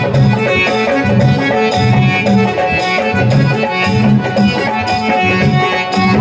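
Live Garhwali folk song accompaniment played over a loudspeaker system: an instrumental passage of held melody notes over a steady, regular drum beat, with no singing.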